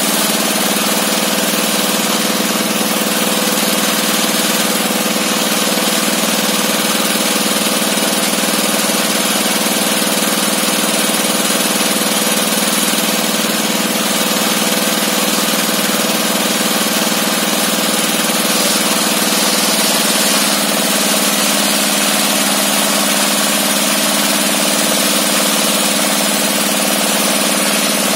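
Sawmill table circular saw and its drive engine running steadily, a loud continuous mechanical drone, while boards are fed through the blade to straighten their edges.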